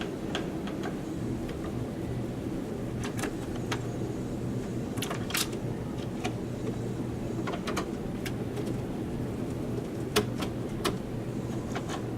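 Scattered small clicks and taps of hand tools and parts being worked on a desktop motherboard while the AM3 CPU socket's mounting bracket is removed, over a steady low hum. The loudest click comes about ten seconds in.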